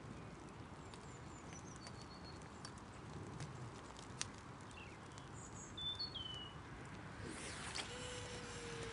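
Quiet open-air ambience with a few short bird chirps and sharp clicks, then about seven seconds in a rushing whoosh as a long casting rod is swung through the forward cast and the line shoots out, trailed by a faint falling whistle.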